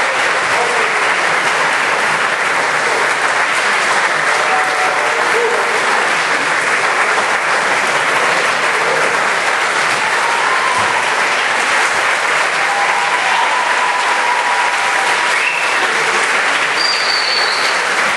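Audience applauding steadily, without a break.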